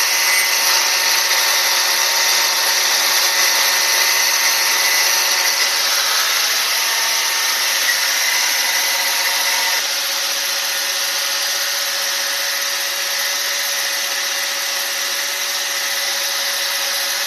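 Powered piston ring grinder running steadily, grinding the end of a 5.3 LS top ring to widen its end gap toward 0.017 in. A steady grinding whir with a faint whine, easing slightly about ten seconds in.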